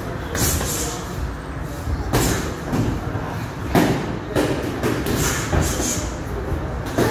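Boxing gloves landing in irregular punches during sparring: several sharp thuds a second or so apart, over steady gym noise.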